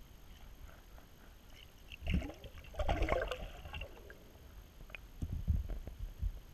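A hooked trout splashing at the surface, heard from underwater: muffled low thumps, with a burst of splashing and bubbling from about two to three and a half seconds in.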